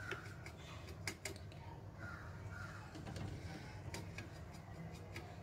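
Watercolour brush scrubbing and swirling paint in a metal palette tin: faint scratching with a few light clicks of the brush against the tin, over a steady low hum.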